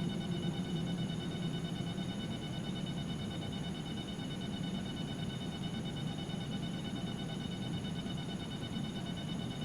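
Synthesized ambient drone from a Novation Circuit Tracks sound pack: a steady, noisy atmosphere texture with faint, steady high whistling tones held above it.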